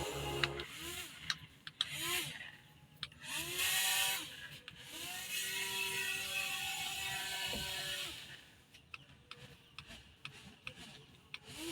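Small coreless DC motors of a homemade RC boat whining in short bursts, their pitch rising and falling as they speed up and slow down. There is one longer steady run in the middle, and a few light clicks.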